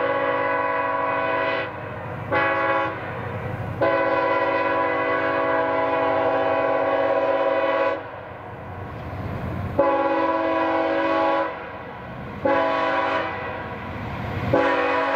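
CSX freight locomotive's multi-chime air horn sounding a series of long and short blasts, a crossing signal, with the train's low rumble between blasts.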